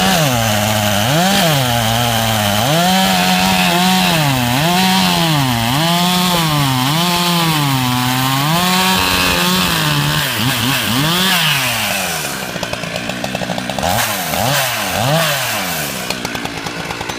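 Two-stroke chainsaw cutting through a log, its engine pitch dipping and recovering over and over as the chain bogs in the wood and the throttle is worked. In the last few seconds it runs lower and less steadily.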